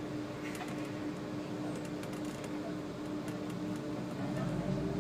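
The cab of a SOR NB 12 City bus, its engine running with a steady tone and a few light rattles and clicks; the low engine rumble grows stronger near the end as the bus pulls away.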